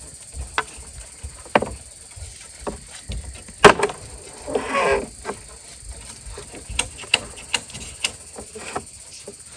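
Irregular knocks and taps of hand work on wood or bamboo, with one sharp, louder strike about three and a half seconds in and a brief call about a second later.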